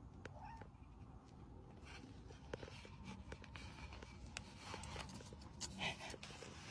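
Kitten mewing faintly, a short mew about half a second in and a louder one near the end, among light rustling and small taps.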